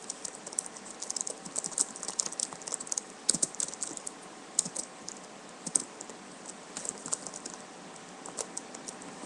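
Typing on a computer keyboard: irregular quick runs of key clicks broken by short pauses.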